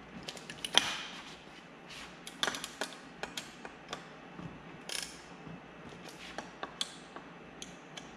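Ratchet wrench clicking in short, irregular runs as the bolts holding an outboard motor's lower unit on are tightened down, with one sharper clack about a second in.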